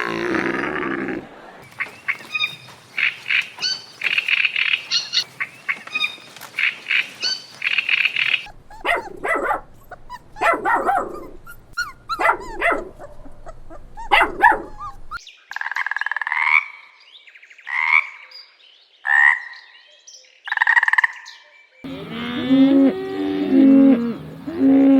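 A string of farm-animal calls edited back to back, a different animal in each clip, changing abruptly about every six or seven seconds. The last few seconds are a cow mooing.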